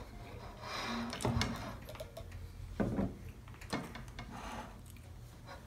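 Hands handling buns and plates on a table: soft rustling and a few light knocks, about three of them, over a low steady hum.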